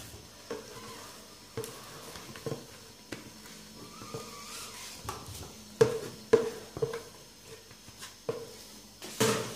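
Scattered soft knocks and clicks from kitchen handling in a quiet room, irregularly spaced and a little louder about six seconds in and near the end.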